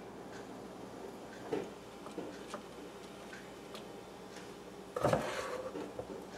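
Metal spoon working batter in a stainless steel mixing bowl: a few faint clicks and taps, then one louder scrape of the spoon against the bowl about five seconds in.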